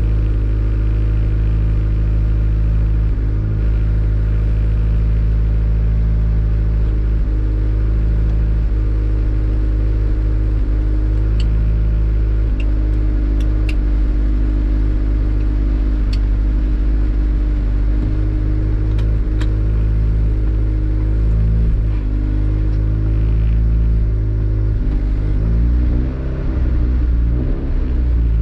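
Honda D-series four-cylinder engine and road rumble heard from inside the car's cabin while driving, a steady drone. Near the end the engine note falls and rises as the revs change. A few faint clicks sound in the middle.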